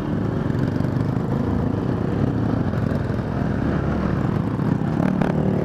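Trail motorcycle engine running steadily, with a couple of brief knocks near the end.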